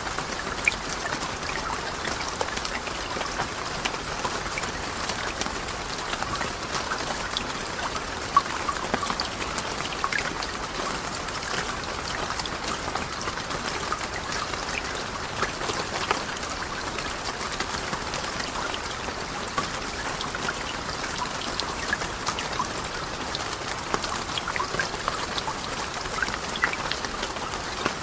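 Steady falling water drops: an even hiss strewn with many small, separate ticks, unchanging throughout.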